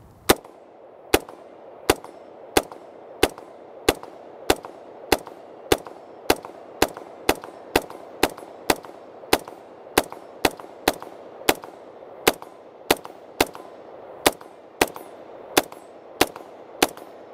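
Daewoo K2 (Max II) 5.56 mm rifle fired in a long string of rapid single shots, about two a second, with roughly thirty shots in all.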